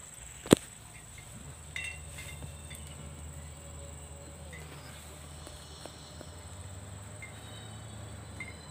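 Car rolling slowly with its engine running low, heard from inside the cabin, under a steady high-pitched buzz. A single sharp click sounds about half a second in.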